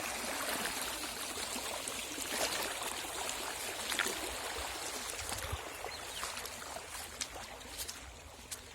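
Running river water trickling and splashing, with a few faint clicks, growing quieter after about six seconds.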